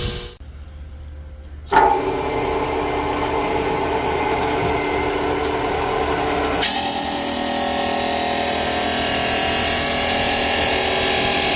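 Power tools or machining equipment running: after a brief low hum, a machine starts suddenly about two seconds in with a steady whine of several tones, and it gives way to a harsher, hissier machine sound about seven seconds in.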